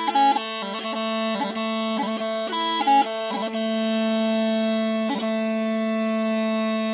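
Scottish smallpipes playing: the drones sound steadily beneath the chanter, which plays a run of quick grace-noted notes for the first few seconds and then holds one long steady note.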